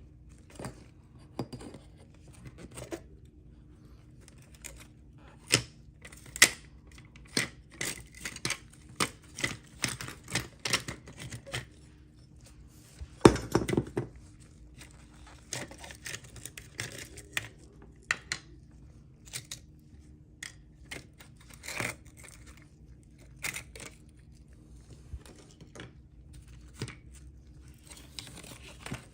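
Small diecast metal and plastic parts being handled and worked by hand: a string of irregular short clicks, taps and scrapes, with a longer, louder scrape about halfway through, over a steady low hum.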